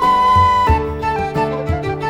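Background instrumental music: a held melody note over a steady low beat, with flute-like and string tones.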